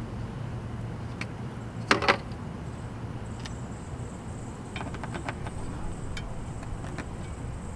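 Small clicks and knocks of a steel antenna J-mount and spirit level being handled against a shed wall's siding while it is levelled and marked, loudest as a pair of knocks about two seconds in. A steady low outdoor hum runs underneath.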